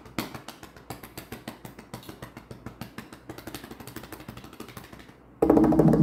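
Rapid typing clicks, several a second, for about five seconds. Then recorded music with percussion starts suddenly and loudly near the end.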